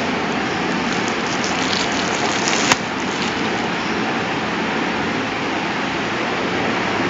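A steady hiss, with a few light clicks and one sharp click about two and a half seconds in.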